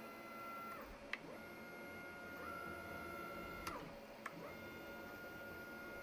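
Stepper motors of an LR3 (Lowrider 3) CNC router whining as the gantry is jogged along the X axis. The pitch glides up as each move starts, holds steady, then glides down as it stops: one move about a second in, another starting about four seconds in. There is a click at each start and stop.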